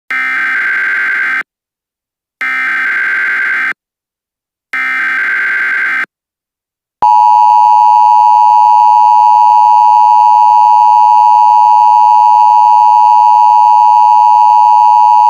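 Emergency Alert System header tones: three bursts of SAME data tones, each about a second and a half long, about a second apart. About seven seconds in, the steady, loud EAS attention signal tone begins.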